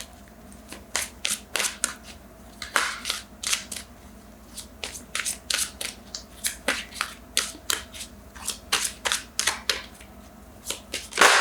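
A deck of tarot cards being shuffled by hand: an irregular run of soft snapping card slaps, about two or three a second, with one louder slap near the end.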